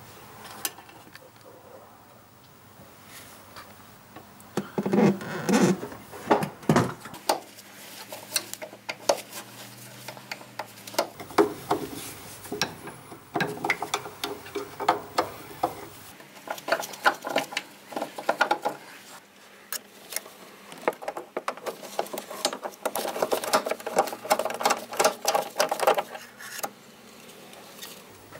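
Hand work on the brake lines under a Mercedes-Benz 180 Ponton: metal clicking, tapping and scraping from tools on the pipes and fittings. It comes in irregular bursts, with a burst about five seconds in and a busier spell near the end.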